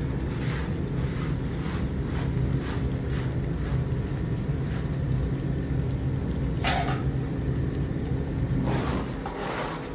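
Steady low machine-like hum with faint, regular knocks about once a second and one sharper knock about two-thirds of the way in.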